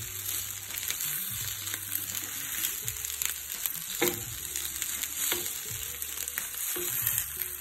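Pork sizzling in a double-sided non-stick grill pan, a steady hiss, while a fork and knife cut the meat, the blade clicking against the pan a few times.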